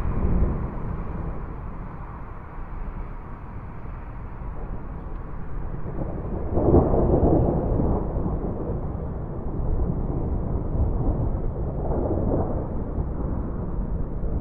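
Rolling thunder of an approaching storm, a deep continuous rumble that swells loudest about halfway through and again, more weakly, near the end.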